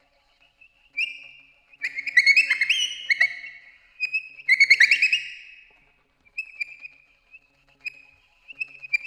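Alto saxophone squealing high, whistle-like notes in short bursts with quick bends and flutters, broken by brief silences, then thinner, softer held squeaks after about six seconds.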